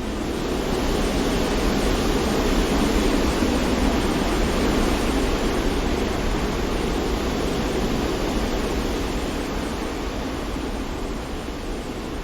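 Steady rushing noise of wind and water, swelling a little over the first few seconds and easing slightly near the end.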